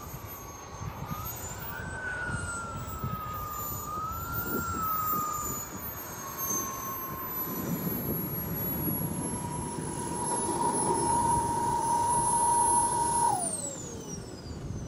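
Model jet turbine of the SebArt Avanti XS RC jet whining in flight, its pitch wavering up and down as it grows louder. Near the end the whine falls steeply in pitch and fades, as on a fast low pass, over a low rumble of wind on the microphone.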